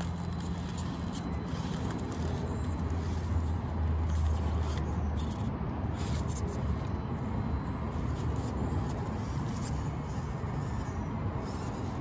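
Axial SCX24 Deadbolt 1/24-scale micro RC crawler driving over dirt and rocks, its small electric motor and geartrain running steadily with scattered small clicks and scrapes from the tires on the rock.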